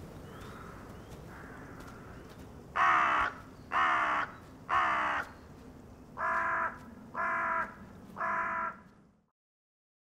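A crow cawing: six harsh caws in two runs of three, over a faint hush of outdoor ambience.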